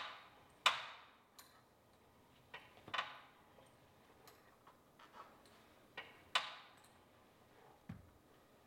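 Faint, irregular clicks and knocks from the Pilates Allegro reformer's strap, rope and carriage hardware as a leg in the foot strap presses down and lifts.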